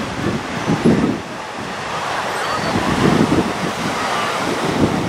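Lake Michigan surf washing onto a sand beach, with gusts of wind buffeting the microphone.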